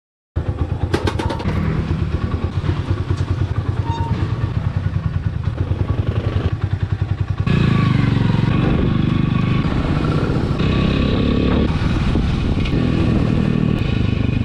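Motorcycle engine running at low revs with an even pulse. About halfway through it changes abruptly to a louder, steadier run as the motorcycle is ridden along.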